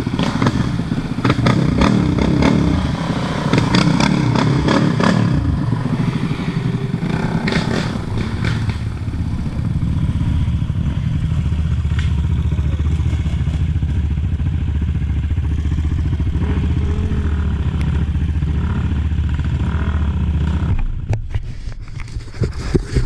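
Motorcycle engine running, uneven with clattering knocks through the first several seconds, then holding a steady low drone before dropping off sharply about 21 seconds in.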